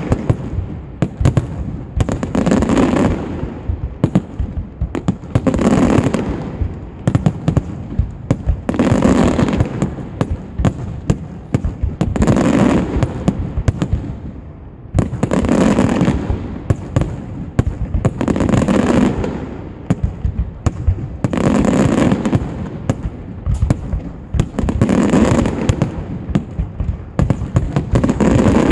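Aerial fireworks display: a dense, continuous barrage of shell bursts and crackling bangs, with a louder swell about every three seconds.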